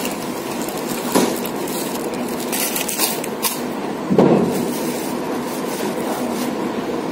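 Kerupuk (crisp Indonesian crackers) being broken and crunched while eating, with the plastic wrapper handled: a few sharp crackles, the loudest about four seconds in, over a steady background hum.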